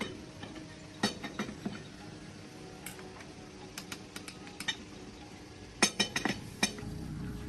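Metal tools and steel parts clinking and tapping in short clusters of sharp knocks, the loudest a quick run of about five knocks around six seconds in.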